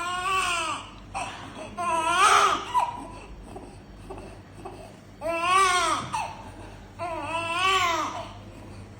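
Newborn baby crying in four short wails with pauses between them.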